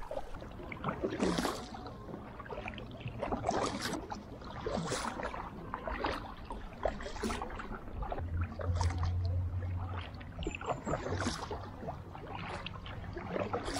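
Kayak paddle strokes: the blades dip and splash in the river about once a second, with water running off between strokes. A low steady hum comes in for a couple of seconds past the middle.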